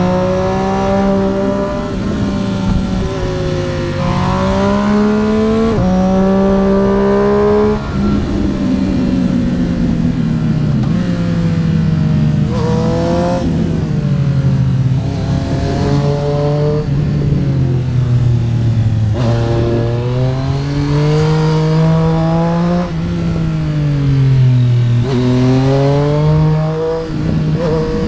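Triumph Street Triple RS three-cylinder motorcycle engine being ridden hard. The revs climb repeatedly and then fall away as it shifts gears and backs off for corners, with several rises and drops.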